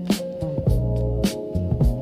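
Background music with a steady drum beat about every half second and a bass line, funk-style.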